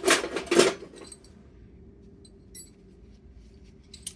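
Metal spanners clattering and clinking against one another as they are picked up and sorted, a busy run of clinks in about the first second, then a few light clicks.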